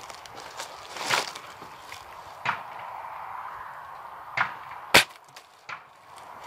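Air rifle fired once: a single sharp crack about five seconds in, the loudest sound, with a few softer clicks and rustling before it.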